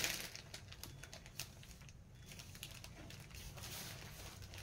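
Faint rustling with scattered light clicks as a saree is handled and unfolded, over a low steady hum.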